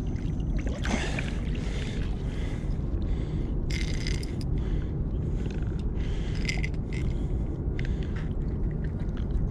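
Steady low wind rumble on the microphone, with short rustles and scrapes from boots in mud and dry reeds and from hands handling a freshly landed blue catfish.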